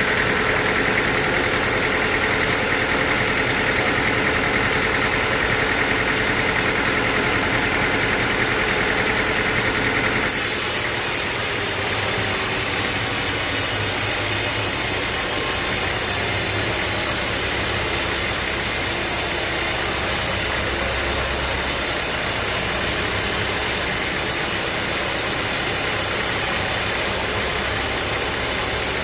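Engine-driven sawmill machinery running steadily. About ten seconds in, the sound changes abruptly: a hum in the upper-middle range drops away and a high hiss rises.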